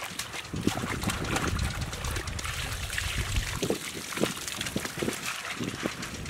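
Bare feet squelching and splashing through wet mud and shallow water, with irregular small crackles.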